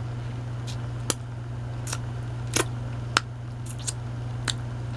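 Eating sounds from chewing a bread roll with chocolate spread: short, sharp mouth clicks and smacks, irregular, roughly every half second, over a steady low hum.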